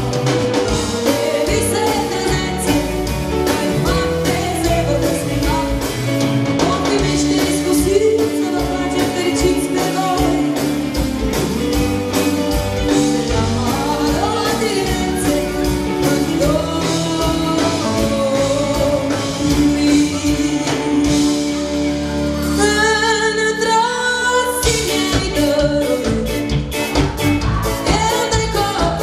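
Live pop song: a woman singing over a band of keyboards, drums and electric guitar. The beat drops out for a couple of seconds about three-quarters of the way through, leaving the voice more exposed, then the full band comes back in.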